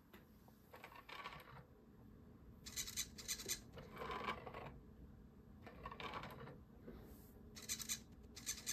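A hobby servo snapping a 3D-printed plastic dragon's jaw down and up, in several short bursts of buzzing and clattering a second or two apart as a hand comes close to its ultrasonic sensor.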